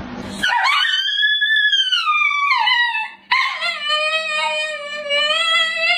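Dogs howling: one long howl that rises and then falls in pitch, and after a short break, a second, lower and steadier howl that drops off at the end.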